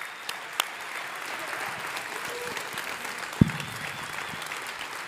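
Audience applauding steadily, with a few sharper single claps at the start and one loud thump about three and a half seconds in.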